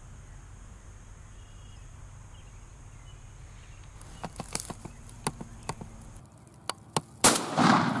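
A turkey-hunting shotgun fired once about 7 seconds in, a single loud blast whose report rolls on afterwards. Before it come a few light clicks and taps.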